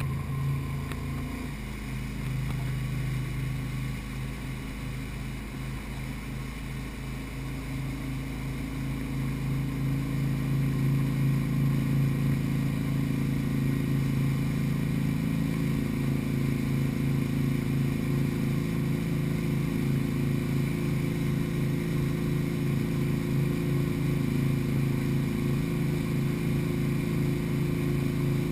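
Tow boat's engine running steadily under way: a low drone that gets a little louder about ten seconds in and then holds steady.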